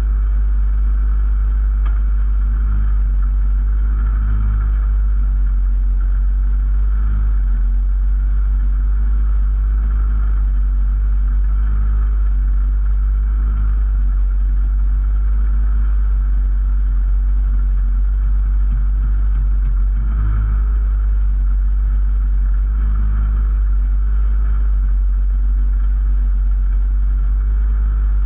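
Rally car engine running at a steady, low note, heard from inside the stripped, roll-caged cabin with a heavy low rumble.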